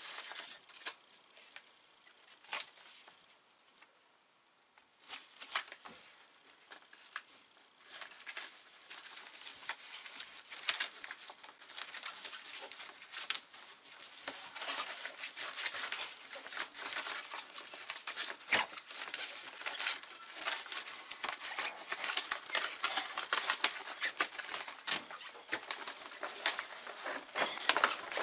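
Dacron sailcloth and the backing paper of sticky Dacron repair tape crinkling and rustling under the hands as the reinforcement is put on. It comes as a quick run of small crackles, sparse at first, then busier and louder from about a third of the way in.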